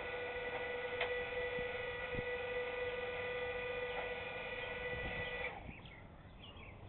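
Electric hydraulic pump of a homemade pickup dump-bed kit running with a steady whine as it powers the bed up, then cutting off suddenly about five and a half seconds in.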